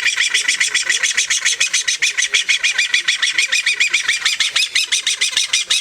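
Green-cheeked conure calling loudly in a rapid, even string of short shrill chirps, about nine a second.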